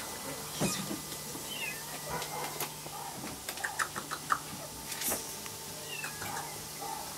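Cats and kittens meowing now and then in short, high, bending calls, with a quick run of small clicks and knocks around the middle.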